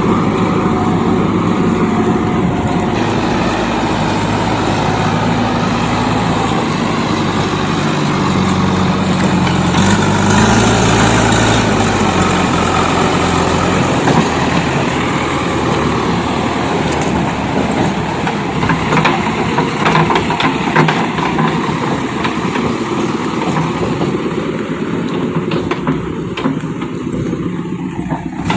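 Heavy diesel engine running, revving up for a few seconds about a third of the way in, with a scatter of clanking knocks in the second half.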